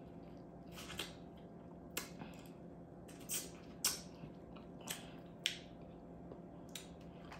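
Faint close-miked eating sounds: chewing and biting food, with short crisp smacks and crunches about once a second over a steady low hum.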